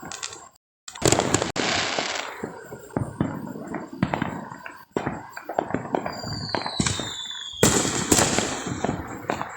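Consumer fireworks going off in quick succession: a string of sharp bangs and crackling. About six seconds in comes a falling whistle, ended by a loud burst.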